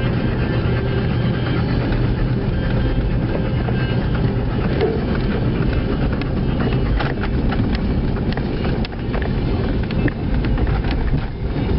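Truck engine running steadily while plowing snow, with scattered clicks and knocks through the second half.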